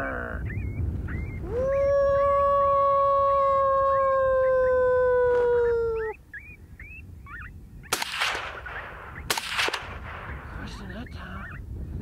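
One long coyote howl from a predator call, held for about four and a half seconds and sagging slightly in pitch at the end. About two seconds later come two sharp suppressed rifle shots in 6mm ARC, about a second and a half apart.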